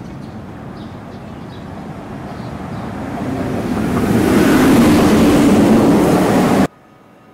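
A passing train: a rumbling rush that swells over a couple of seconds to a loud peak, then cuts off suddenly near the end.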